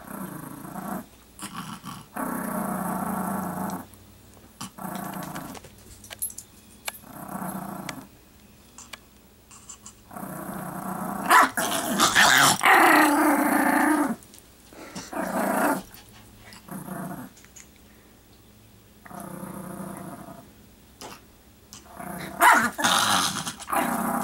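A Chihuahua growling in long stretches with short pauses between them, with louder bursts about halfway through and again near the end. It is a territorial warning growl aimed at a person close by.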